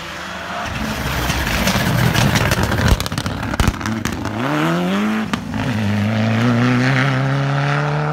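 A Mitsubishi Lancer Evolution rally car passing close through a bend: a rough, crackling engine note with two sharp bangs about three seconds in. It then revs up hard to accelerate away, with a brief break for a gear change and a steadily climbing engine pitch.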